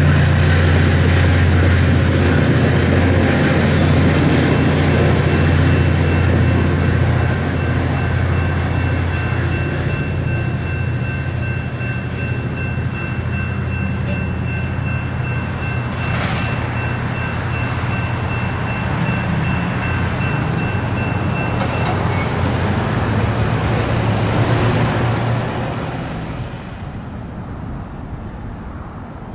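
Altamont Corridor Express diesel commuter train passing through a grade crossing and moving away: a steady low diesel drone with rolling rumble that slowly eases, then drops away near the end. Two faint steady high tones sound through the middle.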